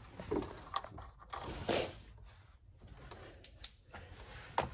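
A few scattered soft knocks and scrapes of a hand and wrench working at a car's negative battery terminal clamp, the loudest just under two seconds in.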